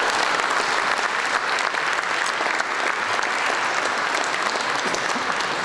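Audience applauding: a dense, steady clatter of many hands clapping at once, marking the end of a talk.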